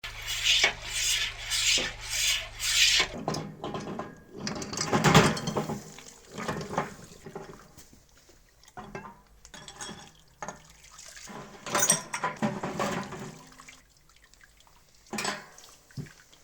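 Workshop handwork on metal parts with water: about five quick, even scrubbing strokes, then irregular rubbing, scraping and clinking, and one sharp stroke near the end.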